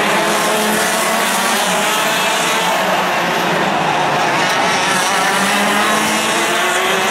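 A pack of TaG racing karts, their 125cc single-cylinder two-stroke engines running hard together. The many engine pitches overlap and rise and fall as the karts come off and on the throttle through the corners.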